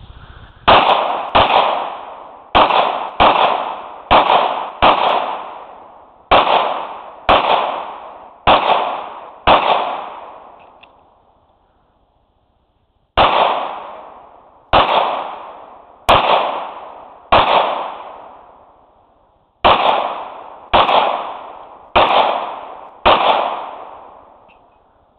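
Pistol fired in strings of shots, about eighteen in all, each crack followed by a short ringing decay. There is a clear pause of a few seconds about ten seconds in, and a shorter one past halfway.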